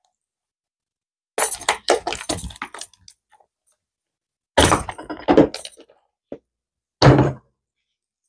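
A cured resin tray being pulled free of its flexible silicone mold. There are two bursts of crackling, clicking and knocking as the resin pops away from the silicone and the mold is handled, then a single thunk near the end.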